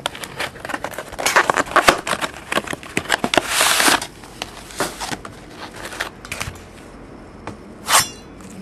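A sealed trading card box and its wrapping being cut and torn open with a knife: irregular clicks, rustling and crinkling, with one longer tearing rip about three and a half seconds in and a short rip near the end.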